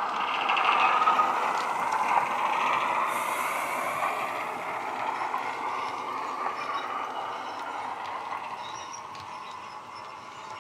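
A Bachmann Class 08 shunter model's DCC sound decoder playing the diesel shunter's engine sound through its small onboard speaker as the train runs, fading gradually as it moves away.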